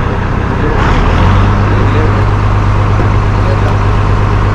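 Fishing boat's inboard diesel engine running under way with a steady low drone, growing louder about a second in and then holding steady.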